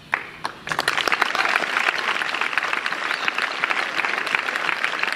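Crowd applauding: a first couple of claps, then the whole crowd joins in under a second later and keeps clapping steadily. The applause breaks a long silence held for the victims of an attack.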